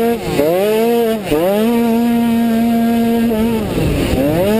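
An automatic cross scooter's engine, heard from the rider's helmet, revs hard under throttle. It dips as the throttle is eased about a quarter second in and again just over a second in. It then holds one steady high pitch for about two seconds, as a belt-drive automatic does when accelerating, and dips and climbs once more near the end.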